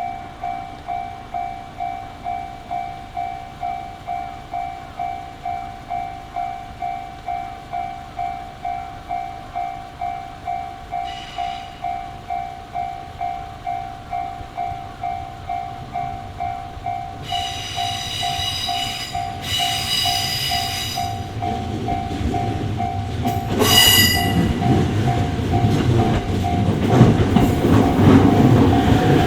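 Japanese level-crossing alarm bell dinging in a fast, even rhythm. A train sounds two horn blasts about seventeen to twenty-one seconds in and a short one near twenty-four seconds. The train's rumble and wheel clatter then build as it runs into the crossing.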